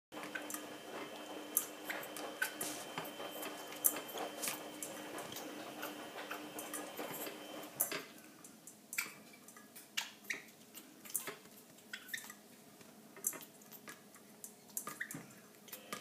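Irregular sharp clicks and taps of an African grey parrot's beak and feet on a glass jar lid and its metal knob, coming more sparsely in the second half. A steady hum runs under the first half and stops about halfway through.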